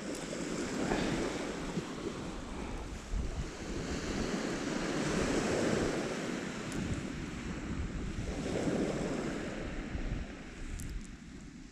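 Sea waves washing ashore, swelling and falling back about three times, with wind buffeting the microphone.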